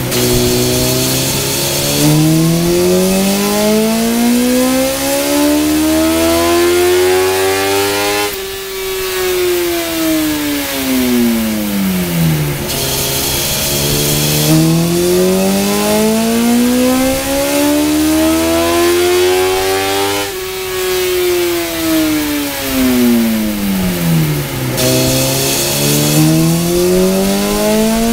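2007 Honda CBR1000RR inline-four with an Akrapovic exhaust making full-throttle dyno pulls: the engine pitch climbs steadily for about eight seconds to the top of the rev range, then winds down for about four seconds as the roller coasts. This happens twice, and a third pull begins near the end.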